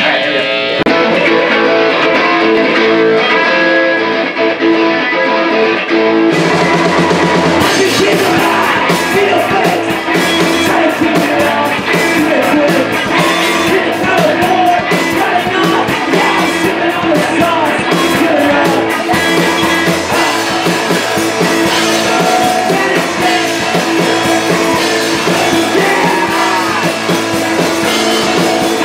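Live post-punk rock band playing loudly through amplifiers: distorted electric guitars and bass ring out on their own at first, then the drum kit crashes in about six seconds in and the song drives on with cymbals and shouted singing at the microphone.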